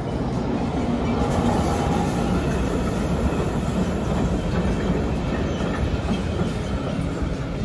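Freight train of covered sliding-wall wagons rolling close past behind an SBB Cargo Am 843 diesel locomotive, its wheels running loudly on the rails.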